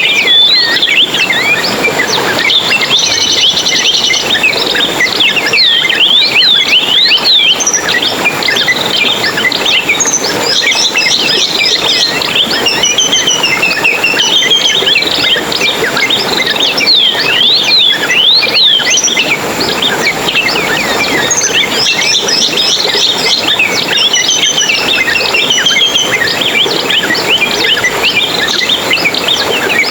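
Dense chorus of many small songbirds chirping, trilling and warbling over each other without a pause, with rapid wavering high calls over a steady background hiss.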